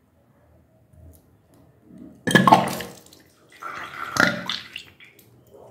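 A woman retching twice over a sink, first about two seconds in and again around four seconds, each heave voiced and gurgling, with liquid splashing and dripping into the basin. It is self-induced regurgitation to bring up undigested food from the stomach.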